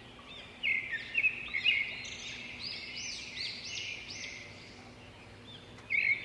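Aviary birds chirping, a string of short, shrill calls that come thick for the first few seconds, ease off, then start up again near the end.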